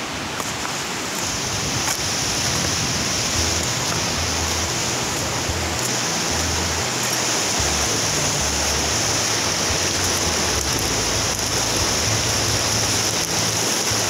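Fast-flowing mountain river running over rapids: a steady, even rush of water.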